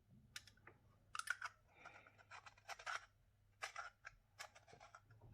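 Faint irregular clicks and scrapes of the small metal and glass parts of a rebuildable tank atomizer being handled and fitted together.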